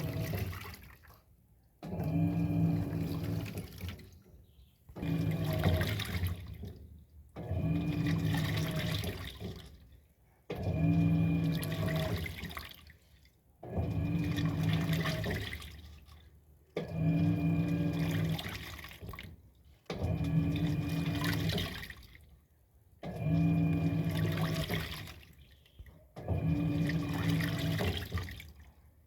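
Electrolux 6 kg washing machine agitating a load of towels in water: the motor hums through strokes of about two seconds, one every three seconds, with water sloshing and swishing in each stroke and a short pause between them.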